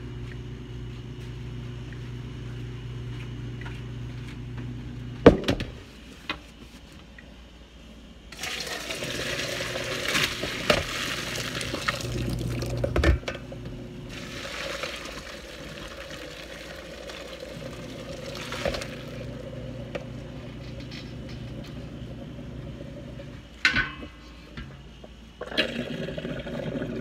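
Hot water being poured off boiled grapes from a stainless steel pot into a sink. It gushes and splashes in a long pour that breaks off briefly partway through, with a few sharp knocks.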